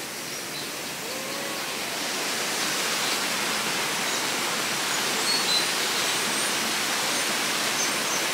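Steady rush of falling water from a small waterfall, growing louder from about two seconds in. Faint short high bird chirps are scattered through the second half.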